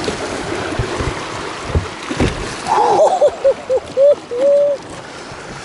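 River water rushing around an inflatable PVC boat running a rocky riffle, with a couple of knocks about two seconds in. Past the middle comes a run of short squeaks, about six, the last one longer, like the boat's rubbery tubes rubbing.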